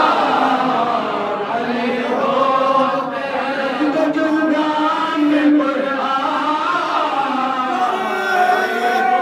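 Group of men's voices chanting a Muharram lamentation (nauha) in chorus into a microphone, led by one reciter with others joining in. The chant is steady and unbroken, with held, wavering notes.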